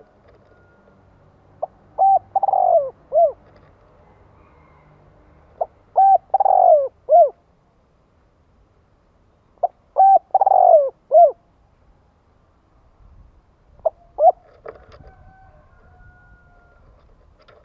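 Spotted dove cooing: four phrases about four seconds apart, each of short coos around one longer, falling coo. The last phrase is shorter.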